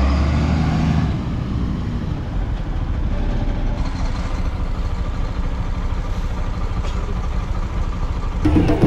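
Motorbike engine running under way on a rough dirt road, mixed with wind noise on the microphone; a heavier low rumble in the first second.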